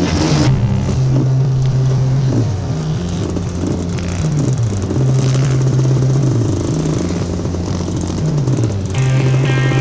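Off-road motorcycle engine under way on a trail. Its note holds steady, then falls away as the throttle is rolled off, about four times over the stretch.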